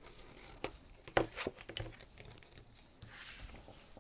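A folded cardstock card being creased with a bone folder and handled on a desk. There are a few light taps and scrapes, the sharpest about a second in, then a short sliding scrape of card near the end.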